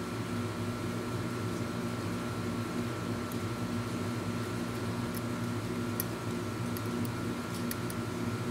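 Air conditioner running with a steady hum. A few faint light ticks come in the second half.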